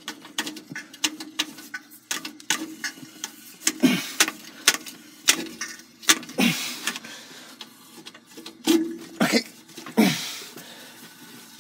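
PEX tube being worked loose and pulled out of a sewer pipe through its cleanout: a run of irregular knocks and clicks, with a few longer scrapes.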